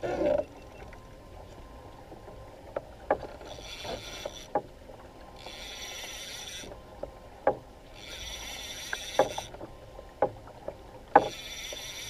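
Fishing reel cranked in short bursts of about a second each, every two to three seconds, as line is won back from a hooked fish on the pump-and-wind. Scattered sharp knocks are mixed in, the loudest at the very start and near the end.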